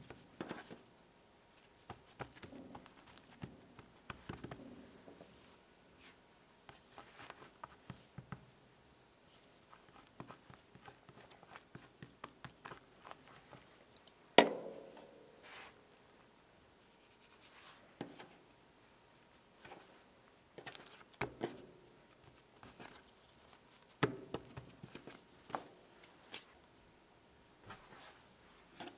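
Hands folding, pressing and patting flour-dusted paratha dough on a countertop, in soft rustles and light taps, with one sharp knock about halfway through.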